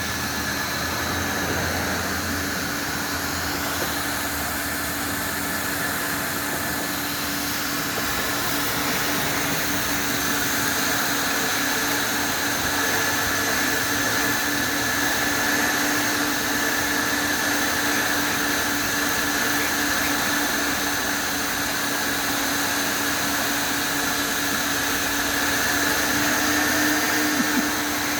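Coin-operated car wash vacuum running steadily: a constant rush of suction noise with a steady hum and a higher whine.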